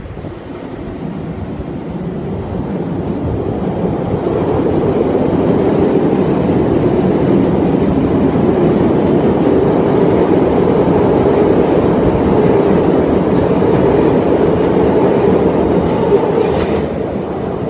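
CTA Bombardier 5000-series rapid transit train running through the station without stopping. Its noise builds over the first few seconds as it approaches, holds steady while the cars pass, and eases off near the end, with one sharp clack about sixteen seconds in.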